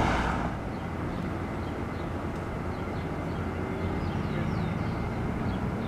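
Distant jet engine rumble of a Boeing 737-800's CFM56-7B turbofans on the runway, steady and slowly growing louder.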